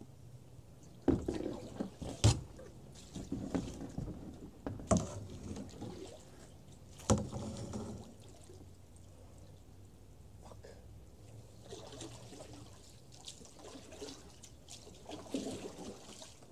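Aluminum canoe being paddled: paddle strokes splashing and trickling in the water, with a few sharp knocks of the paddle on the hull in the first half.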